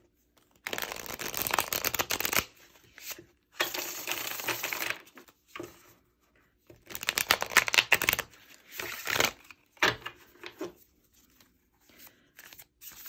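A deck of tarot cards shuffled by hand, the two halves riffled together in three bursts of rapid flicking, each one to two seconds long, then a few softer card taps. The cards have a slightly sticky, less glossy finish than standard gloss.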